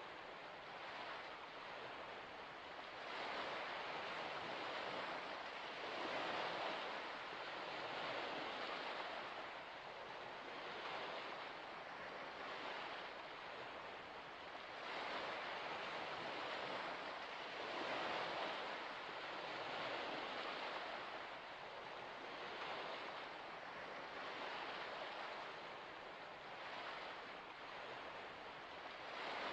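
Soft rushing of water in gentle swells, rising and falling every few seconds like small waves washing onto a shore.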